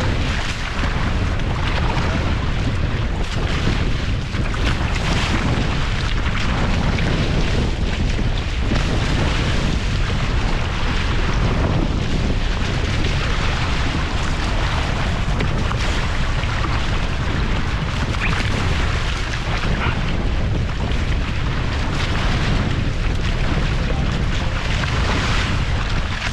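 Wind buffeting the microphone in a steady low rumble, over the hiss of water rushing past a Hobie Cat catamaran under sail.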